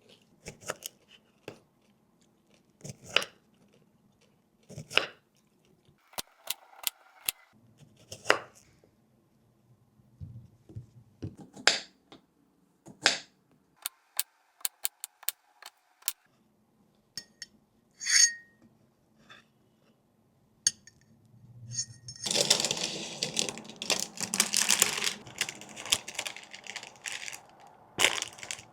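Kitchen handling sounds during food prep: scattered sharp clicks and knocks of utensils and dishes being set down and picked up. About three-quarters of the way in they give way to several seconds of dense, continuous handling noise.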